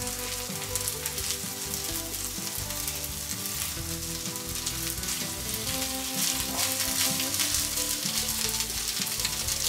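Vegetable rice frying in a grill pan over charcoal, a steady sizzle with a dense fine crackle, stirred with a wooden spatula.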